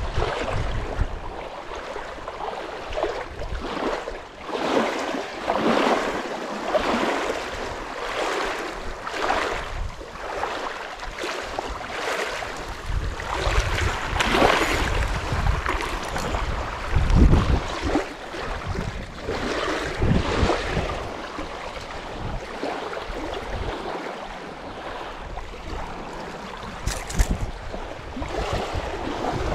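Small waves lapping against a shallow lakeshore in an uneven rhythm, swelling and falling every second or two, with wind buffeting the microphone in low rumbling gusts.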